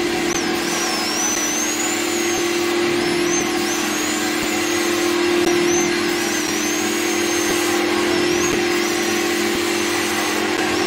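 Carpet extraction machine running steadily as its cleaning wand is drawn across the carpet: a constant hum under a rushing suction noise, with a high whistle that wavers up and down in pitch.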